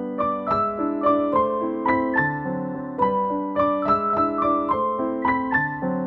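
Background music: a gentle electric piano playing a steady run of notes, several a second.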